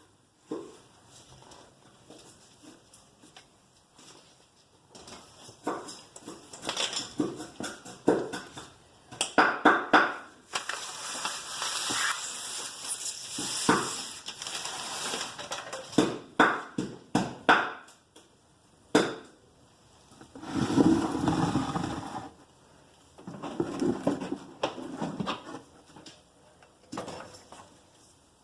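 Irregular metal clinks, knocks and rubbing from hand tools and parts being handled during a brake job, with a few longer scraping stretches in the middle.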